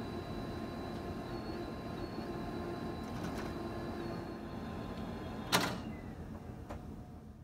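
Canon imagePROGRAF PRO-4100 large-format inkjet printer feeding a sheet of paper: a steady motor whir with faint whining tones, a soft tick about three seconds in and a sharp clack about five and a half seconds in, fading out near the end.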